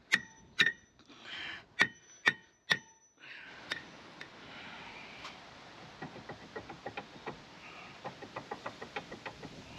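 Hammer blows on a rusted rear brake disc of a 2005 Land Rover Discovery 3, five sharp ringing strikes in the first three seconds, knocking the seized disc loose from the hub. After that come light clicks and rattles as the loosened disc is worked by hand.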